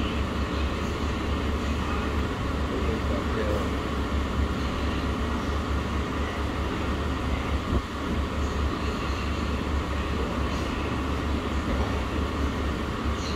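Steady low hum and background noise of a restaurant dining room, with no distinct events.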